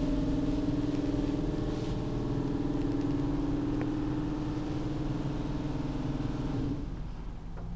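Mark VII Aquajet XT automatic car wash running, heard from inside the car: a steady machine hum over a rushing noise against the bodywork and glass. It dies down about seven seconds in.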